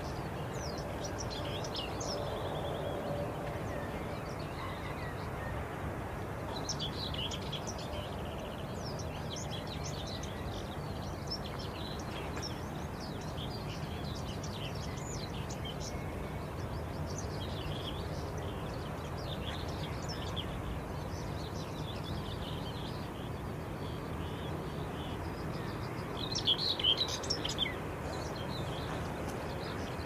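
Small songbirds chirping and trilling over a steady low background rumble, with a louder flurry of song near the end.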